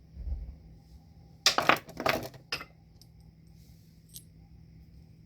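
Small metal parts and tools clattering on a workbench: a dull knock, then about a second and a half in a burst of sharp metallic clinks and rattles lasting about a second, and a light tick near the end.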